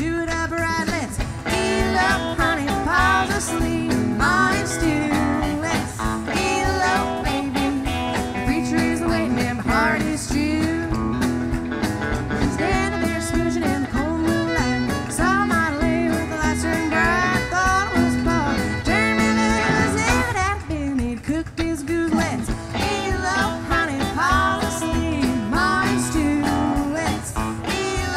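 Live honky-tonk country band playing: electric and acoustic guitars, fiddle, upright bass and drums, with a lead line full of bent and sliding notes over a steady beat.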